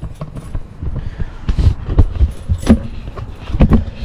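Handling noise from things being moved about inside a van: irregular rattling and clicking, with several sharp knocks.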